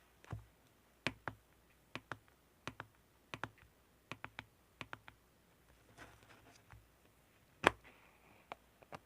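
Slime being pressed and poked by hand, giving sharp clicks and pops, mostly in pairs, with a soft crackle about two-thirds of the way in and one much louder pop near the end.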